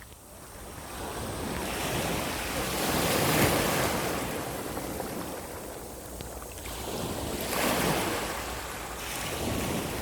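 Sea waves washing onto a beach, the surf noise swelling and ebbing in three surges, the loudest about a third of the way in.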